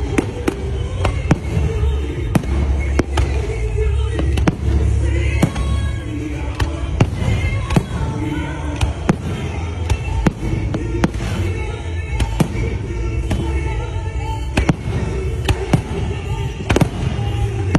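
Aerial fireworks display: a rapid, irregular series of sharp bangs from shells bursting, about one to two a second, over a continuous low rumble.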